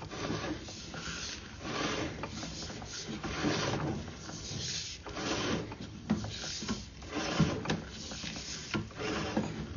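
Irregular rubbing and scraping of a sewer inspection camera's push cable as it is pulled back out of the line, with a few light knocks.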